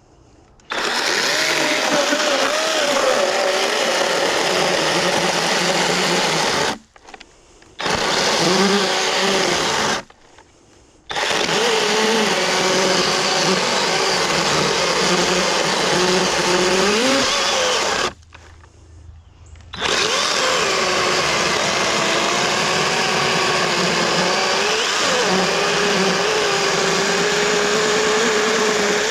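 Kobalt electric chainsaw cutting dense, resin-soaked pine fatwood, its motor pitch wavering under load. It cuts out abruptly three times and starts again each time, as the trigger button is released and pressed.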